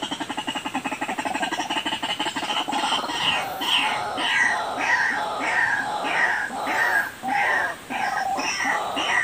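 White-breasted waterhen calls: a fast, even chatter that gives way about three seconds in to a run of repeated falling notes, about two a second.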